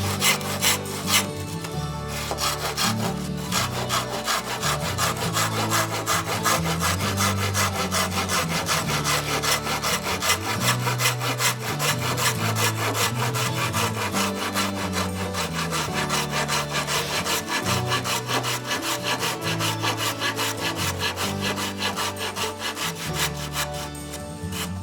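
Hand pruning saw cutting through a persimmon branch with rapid, even back-and-forth strokes that keep on steadily.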